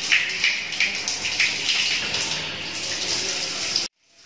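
Overhead rain shower running, water spraying down onto a thin plastic raincoat in a steady hiss. The sound cuts out abruptly for a moment near the end.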